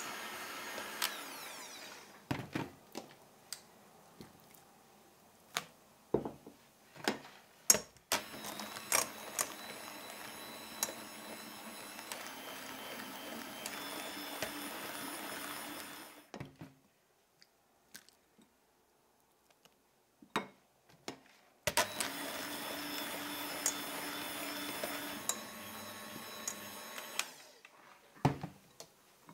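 Electric hand mixer whipping cream in a glass bowl, running in three spells and switched off in between, as vanilla custard is beaten into the cream. Between runs come sharp clicks and knocks of utensils against the glass.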